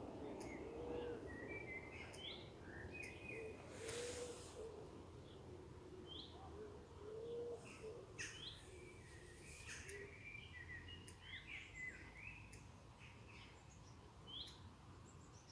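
Faint outdoor birdsong: several small birds chirping and singing in short high notes, with low cooing notes recurring underneath, and a brief hiss of noise about four seconds in.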